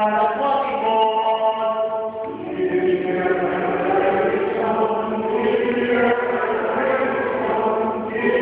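Several voices chanting a Greek Orthodox hymn, with the singing growing fuller a little over two seconds in.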